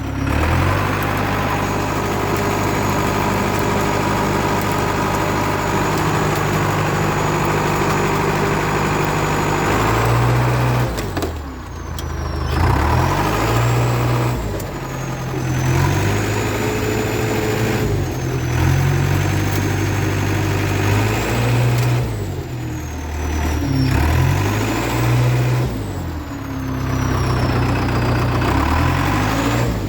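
International Harvester TD8E crawler bulldozer's diesel engine running steadily, then several times its pitch sags and climbs back as the machine works.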